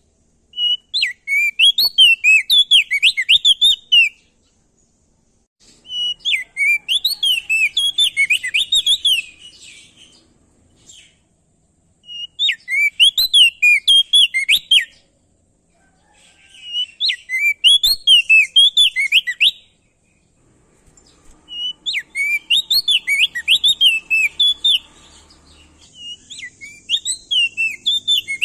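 A prenjak daun (opior jambul) songbird singing loud bursts of fast, high, warbled notes. Each burst lasts about three seconds and is followed by a pause of a second or two, about six times over. A faint steady high hiss joins near the end.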